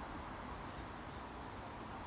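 Steady outdoor background hiss with a low rumble underneath, and a faint short high chirp near the end.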